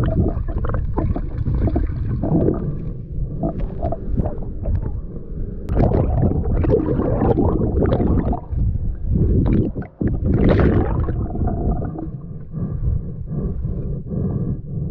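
Muffled rumbling and gurgling of water moving around a submerged camera, with irregular swishing surges.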